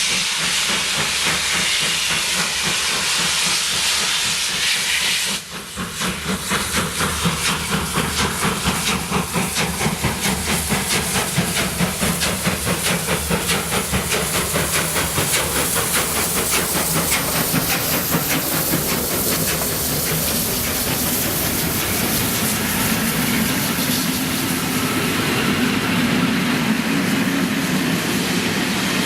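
DR class 18 201 steam locomotive: steam hissing steadily for about five seconds, then an abrupt change to the running train's rhythmic pulsing at about two to three beats a second.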